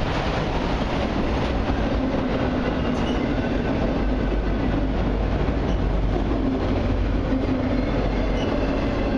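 Autorack freight cars rolling past: a steady rumble and hiss of steel wheels on rail, with faint thin whines from the wheels.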